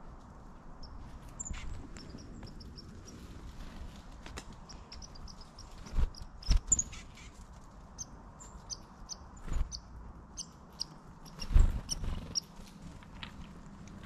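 Small songbirds giving many short, high chirps and call notes scattered throughout, with a few loud, dull thumps around the middle and again a little before the end.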